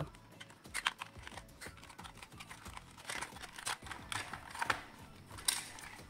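The hard plastic body of a toy RC excavator being handled and turned over at its battery compartment: irregular clicks, taps and knocks of plastic on plastic.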